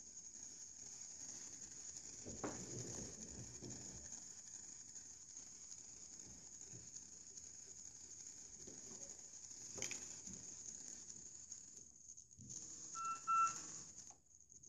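A small homemade Tesla coil running, its top wire throwing small sparks, with a faint steady high-pitched hiss. Near the end the hiss cuts out briefly twice, with a short, louder buzzing tone between the cutouts; a couple of soft thumps come earlier.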